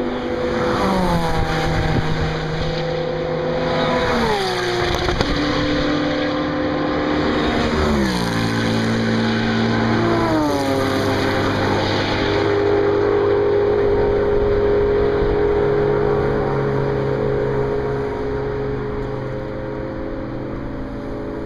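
Several cars passing at high speed, their engines holding a steady pitch and each dropping sharply in pitch as it goes by, four times. The engine sound fades over the last few seconds.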